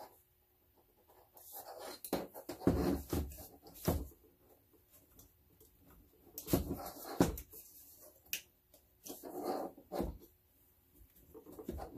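Handling noise from a TYT TH-9800 mobile radio transceiver and its power cable being turned over and set down on a table: scattered knocks, clicks and rustles in several short clusters.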